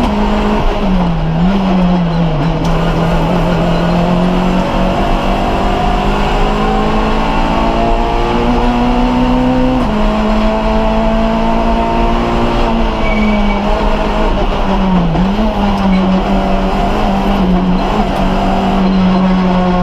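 Inside the cockpit of a small-capacity Group A (A6 class, up to 1.6-litre) rally car at full stage pace: the engine is held at high revs, and its pitch drops and climbs back several times as the driver shifts gear and lifts for corners, with a sharp drop about halfway through.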